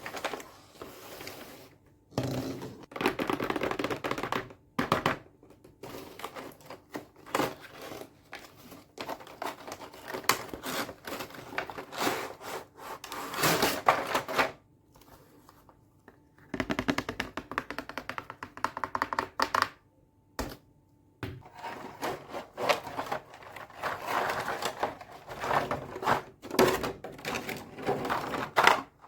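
Plastic toy makeup set packaging and cases being handled and opened: rapid clicks, taps and crackles in bursts, with two short pauses.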